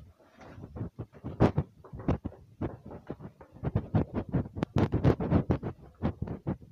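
Irregular knocks and scuffs, several a second, louder from about the middle on: footsteps on plastic grass-underlay sheets and handling noise on the handheld phone.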